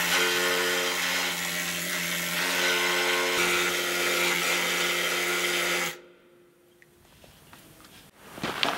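Pneumatic needle gun hammering paint off a steel boat hull plate: a steady rapid buzzing rattle that cuts off abruptly about six seconds in.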